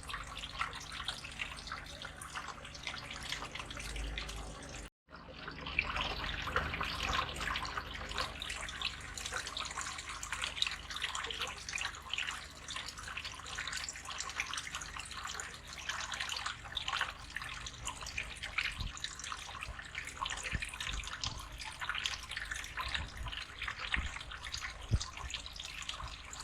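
Water from a small plastic-bottle waterfall trickling and splashing steadily into a fish tank. The sound drops out for an instant about five seconds in.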